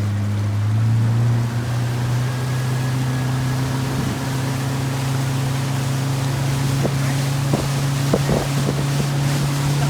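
Motorboat engine running under way. It rises slightly in pitch during the first second, then holds a steady drone. From about seven seconds in, a few short splashes of water against the hull come through.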